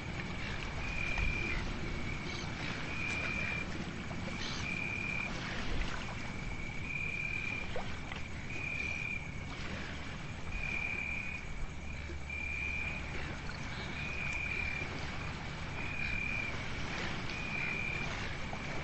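Night-time outdoor ambience: a high-pitched call repeats evenly about every two seconds over a steady high trill, with a low rushing hiss underneath.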